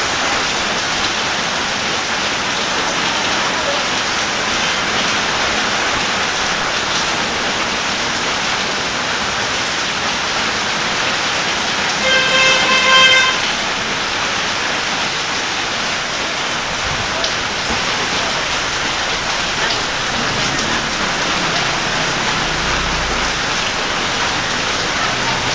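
Heavy typhoon rain pouring steadily onto surfaces and floodwater. About halfway through, a horn sounds once, for about a second.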